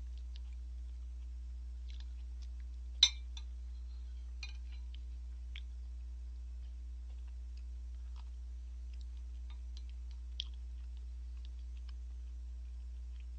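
Small scattered clicks and clinks of wooden chopsticks and a metal spoon against ramen bowls, with one sharp, louder click about three seconds in and another near ten seconds, over a steady low hum.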